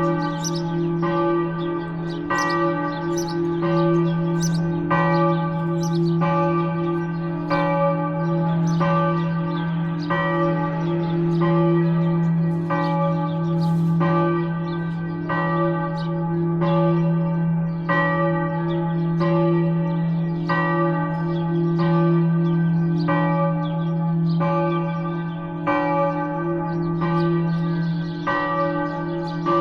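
Church bells ringing together in a full peal: overlapping strokes a little more than once a second over a deep, steady hum from the largest bell.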